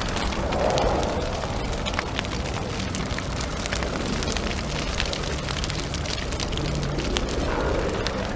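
A steady rumbling noise scattered with many small crackles and pops.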